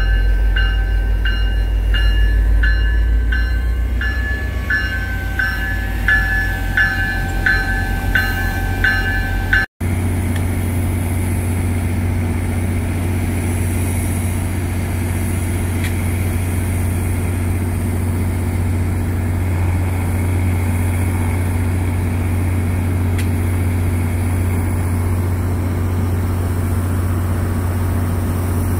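NJ Transit GP40PH-2 diesel locomotive running with a heavy low engine drone. For the first ten seconds it is close by, with a railroad bell ringing about twice a second. After a sudden cut the engine carries on as a steady, even drone while the locomotive stands.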